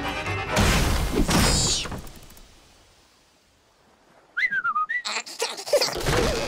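Cartoon sound effects: a loud noisy rush early on that dies away into quiet, then a short wavering whistle with quick clicks and clattering hits after it.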